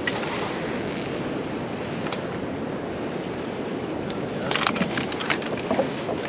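Steady rushing noise of strong wind and sea on a pier, with a quick cluster of sharp clicks about four and a half seconds in.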